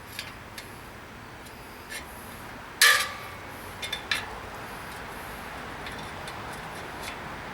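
Wire cutters snipping metal parts off a bicycle. One loud, sharp metallic snap with a brief ring comes about three seconds in, with lighter clicks of metal handling before it and a second later.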